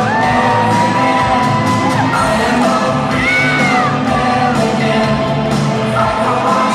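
Loud walk-out music in a cage-fighting hall: a song with a steady beat and a singer's long held, gliding notes.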